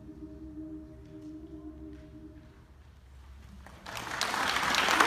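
A mixed choir's final held chord dying away in a reverberant church, followed by a brief hush; the audience's applause breaks out about four seconds in and quickly grows louder.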